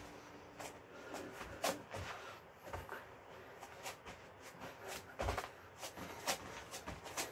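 Sneakers and gloved hands thudding and scuffing on a foam exercise mat during burpees: a quick, irregular run of soft knocks, a few of them louder thumps.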